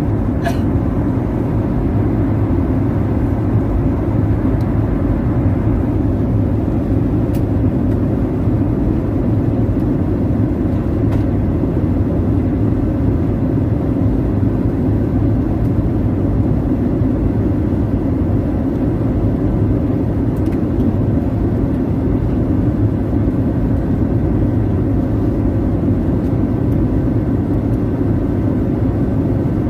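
Steady low roar of an airliner cabin in flight, with a faint steady hum over it and a brief click near the start.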